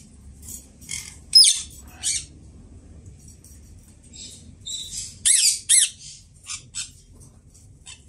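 Indian ringneck parakeet calling: a run of about a dozen short, shrill calls with sweeping pitch, the loudest two a little past the middle.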